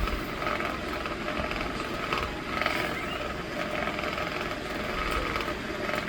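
Electric fan running steadily: an even hum of air and motor with a few faint steady tones.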